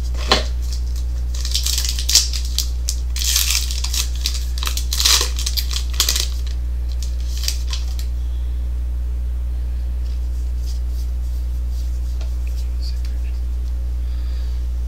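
Foil trading-card pack wrappers crinkling and tearing as packs are handled and one is ripped open, with a few sharp clicks, for about six seconds. After that only a steady low hum remains.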